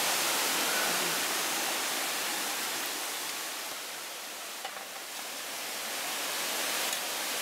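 Steady rushing background noise, even across high and low pitches, dipping a little in the middle and rising again near the end.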